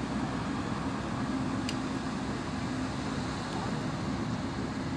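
Steady low rumble of outdoor background noise, with one short click about a second and a half in.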